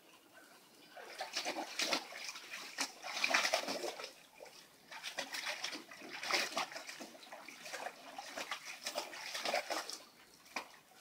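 A Portuguese Water Dog splashing about in the water of a plastic kiddie pool: irregular bursts of sloshing and splashing from about a second in until near the end.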